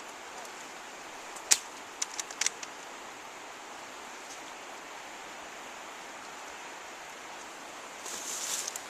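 Airsoft guns firing: one sharp crack about a second and a half in, then a quick cluster of three or four fainter cracks, over a steady hiss. A rustling noise starts near the end.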